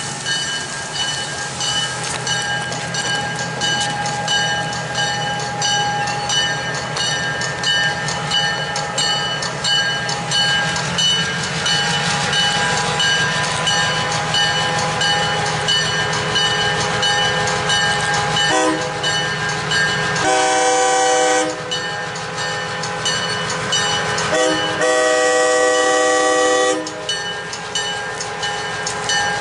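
Train running along the track with a steady, even clicking, its horn sounding three times: a very short blip, then a blast of about a second, then a longer blast of about two seconds.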